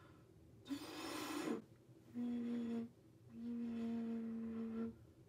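A clay xun vessel flute with a small, freshly cut mouthpiece hole being test-blown: a rush of breath, then two steady low notes at the same pitch, one short and one longer.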